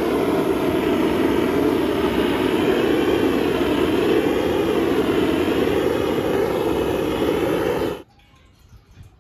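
Gas blowtorch on a gas cylinder burning with a loud, steady rushing flame as it is swept over wooden planter boards to scorch them, the sound wavering slightly as the torch moves. It stops abruptly about a second before the end.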